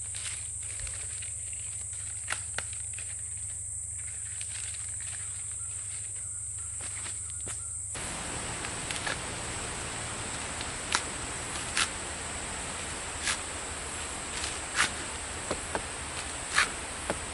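A steady high-pitched drone of insects, with a low hum beneath it. From about halfway, a string of sharp, irregular knocks and cracks from a sprouted coconut being worked and husked.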